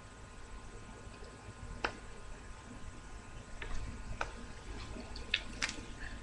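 Faint, scattered small clicks, about five of them, from handling a lip gloss tube and its applicator wand while the gloss is put on, over a low room hiss.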